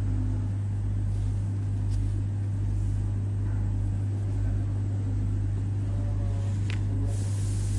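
A steady low hum, with a single sharp click about six and a half seconds in and a short hiss near the end.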